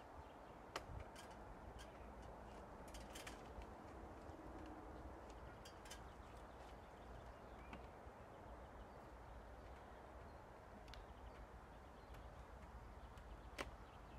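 Near silence: faint outdoor background with a few scattered light clicks or taps, the last one near the end the loudest.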